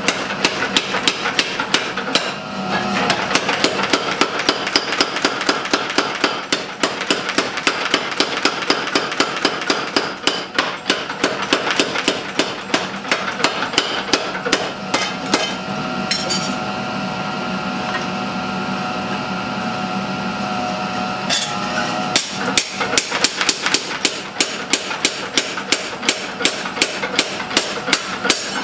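Mechanical power hammer rapidly pounding a red-hot steel bar, about five blows a second, pausing for several seconds past the middle while its running hum carries on before the blows resume.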